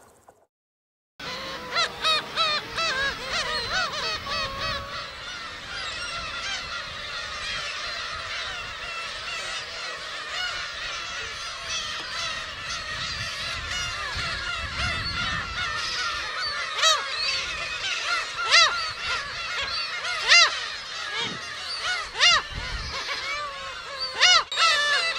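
A large colony of black-tailed gulls calling together, a dense chorus of overlapping calls that starts about a second in, after a moment of silence.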